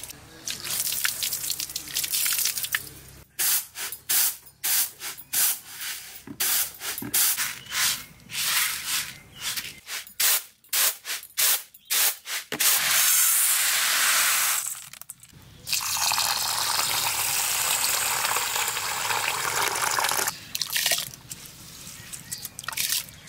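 Water poured from a mug splashing over a bunch of moringa leaves being rinsed. Then a series of short rasping shakes of rice grains on a bamboo winnowing tray, followed by long stretches of steady pouring and splashing water.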